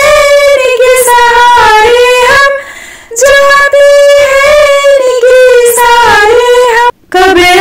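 A woman singing a Hindi devotional bhajan solo, in long held, wavering notes, with a brief pause for breath about three seconds in and a sudden short break near the end.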